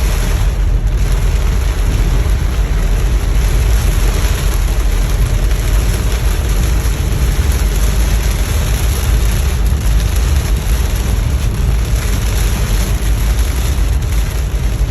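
Car driving in heavy rain: a steady rush of rain and tyre noise on the wet road over a constant low rumble.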